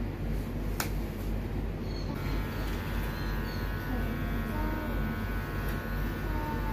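A cat nail clipper snaps once about a second in. About two seconds in, a small electric pet clipper starts and runs steadily, trimming the fur on a cat's belly.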